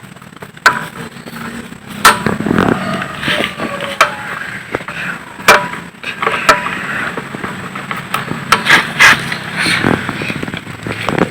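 Irregular sharp metallic knocks and clinks of tools and parts during engine disassembly, some with a brief ring, about eight spread over the stretch.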